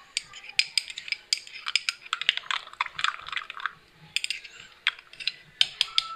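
Metal spoon stirring yeast, sugar and lukewarm water in a glass tumbler, clicking and clinking rapidly and irregularly against the glass, with a brief lull about four seconds in.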